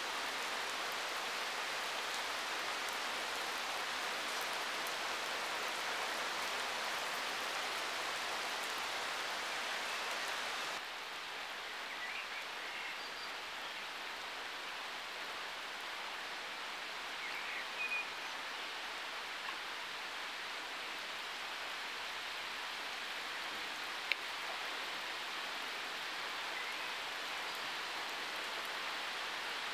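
Steady rain falling on open water, an even hiss of drops. About eleven seconds in the hiss turns slightly quieter and duller, and later a few faint short high sounds and one sharp tick stand out over it.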